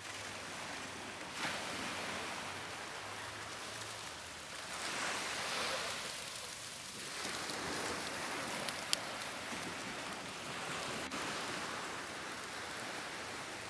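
Small surf washing onto a sandy beach: a steady hiss that swells and fades with the waves, with one sharp click about nine seconds in.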